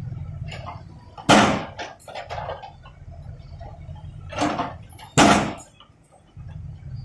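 JCB backhoe loader's diesel engine running steadily while its bucket crashes into and scrapes through broken concrete rubble, with three loud hits, about a second in and twice more around four to five seconds in. The engine drops out briefly after the last hit.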